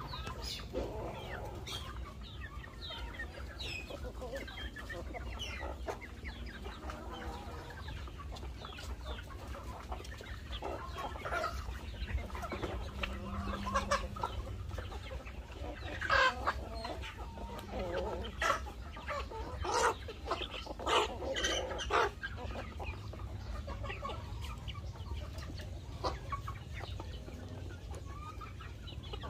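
A feeding flock of chickens clucking, with many short calls and squawks scattered throughout and busiest around the middle.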